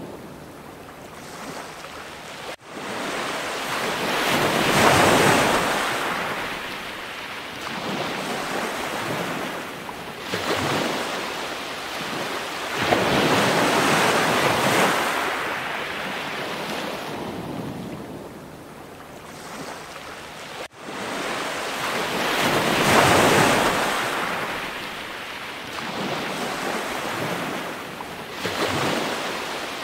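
Ocean surf: waves swelling and washing back in slow surges about every nine seconds, with two sudden brief gaps.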